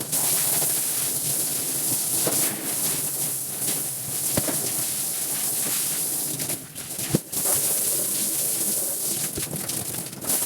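Steady hiss of water spraying, as in rinsing a rug, broken by a couple of short sharp knocks.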